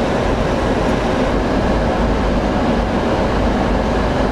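Steady flight-deck noise of a Boeing 737-800 on final approach: air rushing past the cockpit over the running engines, with a faint low hum.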